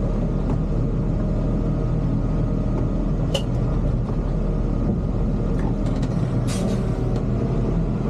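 Recycling truck's engine running steadily while driving, with two brief sharp clicks, one a little past a third of the way in and one near the end.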